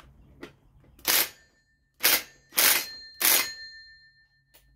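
Cordless impact wrench fired in four short bursts, tightening a chainsaw's clutch back onto the crankshaft.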